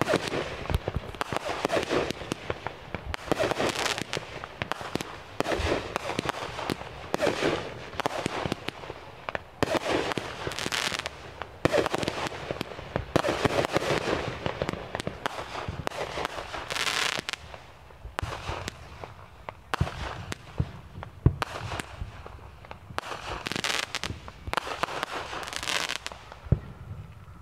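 Aerial fireworks firing and bursting in quick succession: a near-continuous string of bangs and crackles that dies away near the end.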